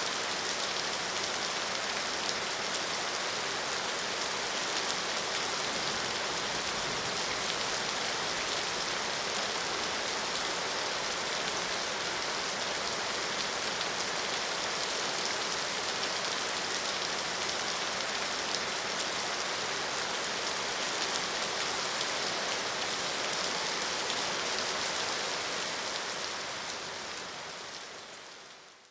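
Steady heavy rain falling, a dense even hiss of drops, that fades out over the last few seconds.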